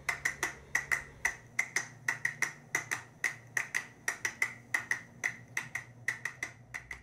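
A steady run of crisp clicks or snaps, about five a second, in a slightly uneven rhythm, like a finger-snap beat.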